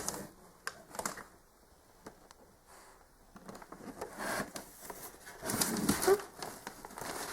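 A boxed toy set being handled and turned over: a few light knocks and clicks against the box, then louder rubbing and rustling about five and a half seconds in.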